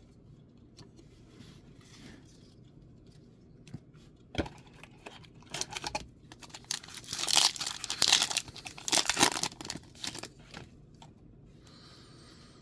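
A Mystery Booster 2 booster pack's wrapper being torn open and crinkled: a sharp snap a little over four seconds in, then a run of ripping and rustling that is loudest around eight seconds in and dies away near the end.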